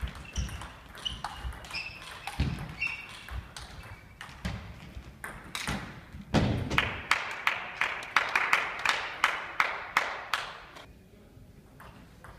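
Table tennis rally: the ball clicking back and forth off the rackets and table, with sneakers squeaking and thudding on the hall floor as the players move. Around the middle the hits come fast and even, a few a second, then stop shortly before the end.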